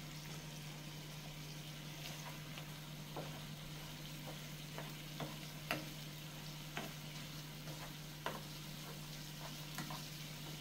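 Shrimp cooking in butter in a nonstick skillet, with a faint steady sizzle as the shrimp's water cooks off over raised heat. A wooden spoon stirs and scrapes against the pan, making irregular light clicks.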